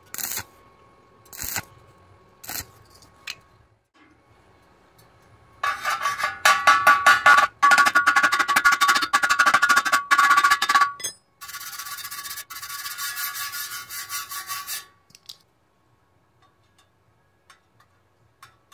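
Stick-welding arc on steel crackling in a few short bursts as the electrode finishes the bead. Then a wire brush scrubs the slag off the weld in rapid scraping strokes for several seconds, loud at first and lighter near the end.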